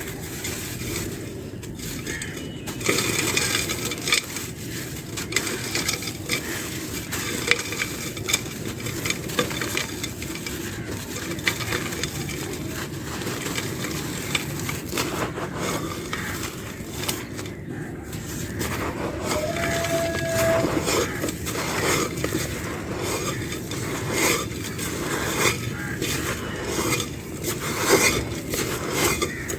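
Dry, brittle clay crumbling and crunching: a steady run of small crackles, with clinks of hard pieces knocking together.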